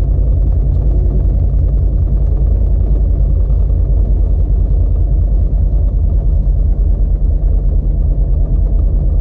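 A 4WD winch truck's engine running at steady low revs while the truck wades slowly through deep floodwater: a loud, deep, even drone.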